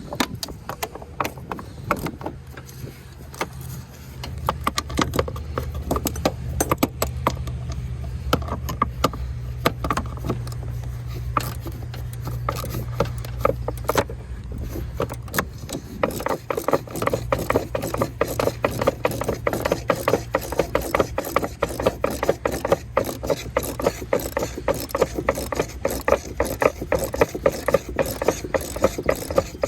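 Hand ratchet wrench clicking in fast runs, working fasteners loose under a riding mower, over a steady low hum.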